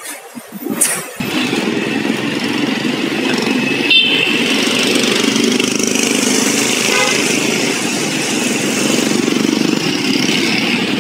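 Street traffic noise: motorcycle engines running and passing, with a steady hum of road noise that sets in suddenly about a second in.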